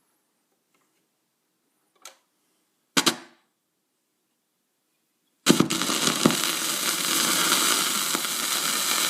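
A record being played: two clicks, the louder about three seconds in, then from about five and a half seconds the steady hiss and crackle of the stylus running in the record's lead-in groove before the music.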